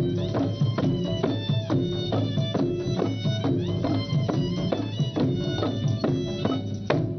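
Traditional Malay ensemble playing: a bowed fiddle carries the melody over hand drums and gongs. The drum strokes fall about twice a second.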